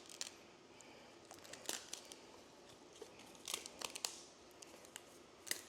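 Crinkling, tearing and sharp clicks of a Tesla cabin air filter's paper and charcoal-honeycomb media being taken apart by hand, in scattered bursts.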